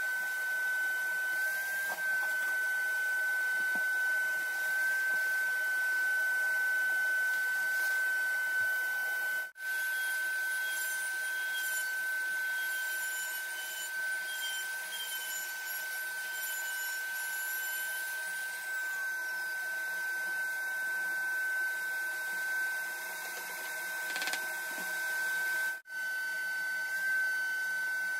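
Trim router running at speed with a steady high-pitched whine as it cuts circular holes in an MDF panel. The sound cuts out for an instant three times.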